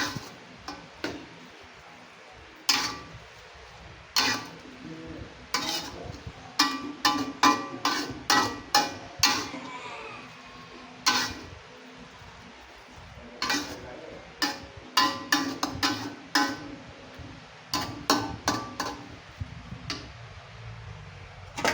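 Kitchen utensils clinking and knocking against pots and dishes: irregular sharp clinks, some ringing briefly, coming in busy clusters with quieter gaps between.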